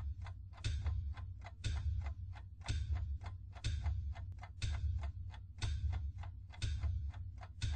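Film-leader countdown sound effect: a sharp tick once a second, with quicker faint ticks between, over a low hum that swells with each strong tick.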